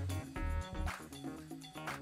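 Background music with a steady bass line and a beat.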